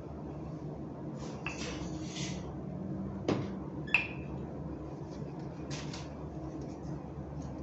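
Rolling pin rolling pastry dough out on a kitchen counter: soft rubbing and rustling with two sharp knocks about three and four seconds in, over a steady low hum.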